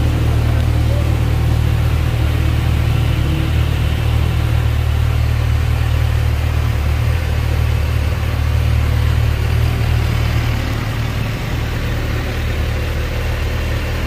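2024 Kawasaki ZX-6R's 636 cc inline-four engine idling steadily through its stock exhaust.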